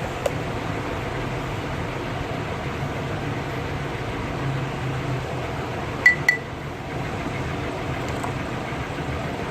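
Steady low background hum, with two quick ringing clinks a fraction of a second apart about six seconds in.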